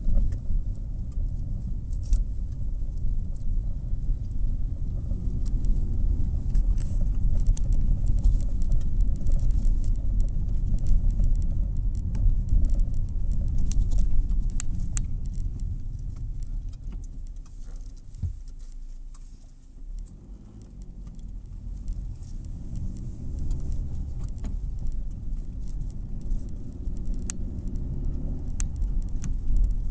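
Car driving slowly, heard from inside the cabin: a steady low rumble of engine and tyres with light clicks and rattles. The rumble dies down a little past halfway as the car slows, then builds again, rising in pitch as it pulls away.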